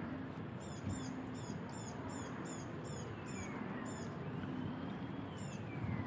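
A chipmunk chipping: short, high chirps repeated about two to three times a second, breaking off about four seconds in with one more near the end, over a steady outdoor background hiss.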